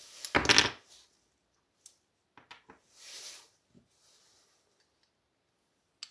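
Hands handling small chainsaw carburetor parts on a workbench. A loud, brief rush of noise comes about half a second in, then several light clicks as a small metal part is set down, a soft hiss a few seconds in, and one more click near the end.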